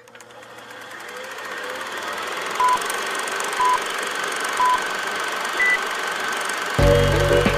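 Film countdown leader sound effect: a film projector running with a steady rattling whir that fades in, and a short beep each second, three at one pitch and a fourth higher. Music comes in near the end.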